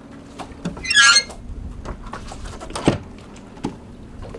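Large fiberglass lazarette hatch lid being lowered and shut. About a second in there is a brief, loud, high scraping creak. Just before three seconds in comes a single knock as the lid comes down, with a few lighter clicks around it.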